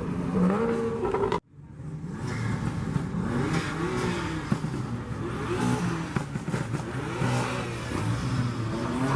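Car engines running, with revs rising and falling. The sound cuts out sharply for a moment about one and a half seconds in.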